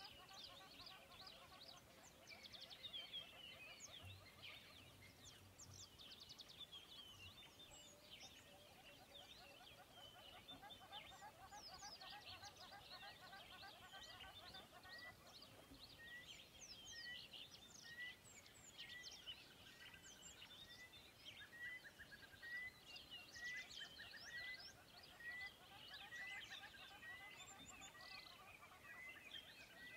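Faint birdsong: many birds chirping and trilling together, with one short call repeating about once a second through the second half.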